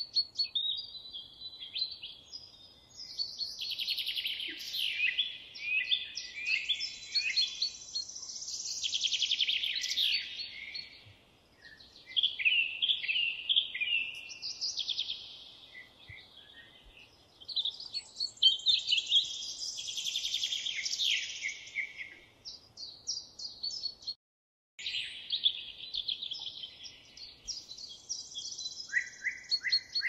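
Songbirds singing: a continuous string of varied high trills and chirping phrases, broken by a half-second gap of total silence about two-thirds of the way through.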